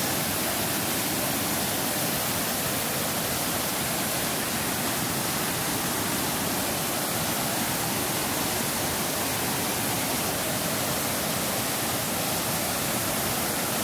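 Tahquamenon Lower Falls: whitewater rushing over a wide, low rock ledge, a steady, unbroken noise.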